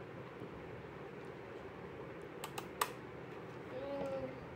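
A few sharp clicks and light knocks of plastic and metal tricycle handle parts being handled and fitted by hand, the loudest about three seconds in, over a steady faint room hum.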